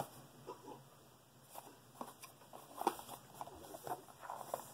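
Faint, scattered taps and rustles of a small cardboard blind box being handled and turned over in the hands.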